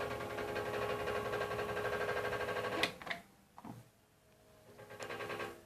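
Steady electrical buzz from a homemade inverter's microwave-oven transformer, cutting out with a sharp click about three seconds in. A few clicks follow, then the buzz starts again briefly and stops near the end.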